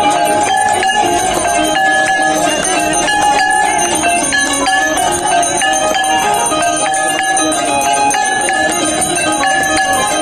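Brass temple bells rung continuously and rhythmically during the aarti, their repeated strikes keeping a steady ringing going.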